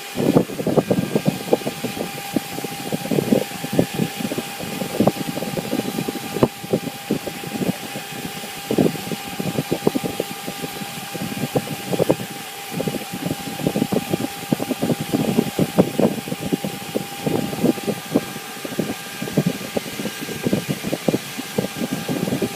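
CNC router spindle running with a steady high whine while its bit cuts into a square wooden beam held in a rotary axis, giving an irregular, rough, crackling cutting noise that swells and fades as the tool works along the wood.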